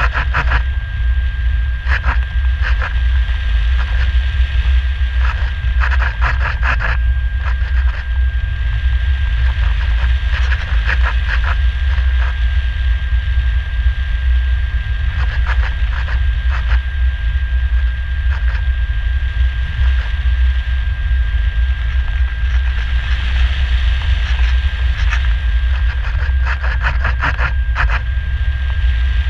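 Wind noise on the microphone of a camera mounted on a flying RC glider: a heavy steady rumble with a constant thin high tone, broken every few seconds by short bursts of crackling.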